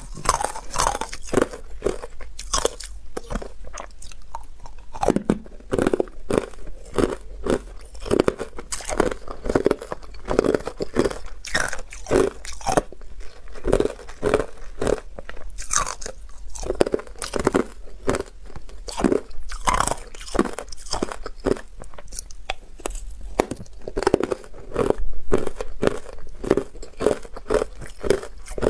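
Ice coated in matcha powder being bitten and chewed close to the microphone: a dense, irregular run of sharp crunches, several a second.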